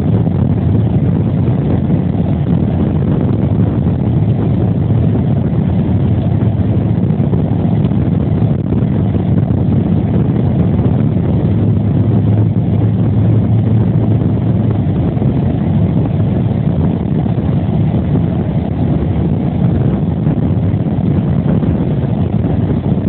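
Car being driven: a steady, unbroken rumble of engine and road noise.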